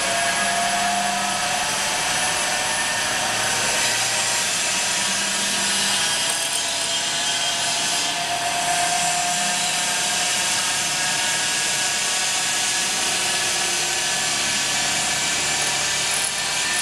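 CNC band-knife cutting machine running, its thin band blade driven over the pulley wheels and cutting a white slab, with a steady hiss and a few faint whining tones.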